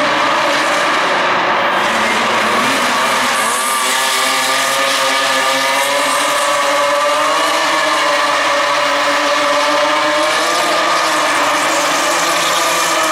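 Rally car engine running hard, its pitch rising and dropping several times as it revs.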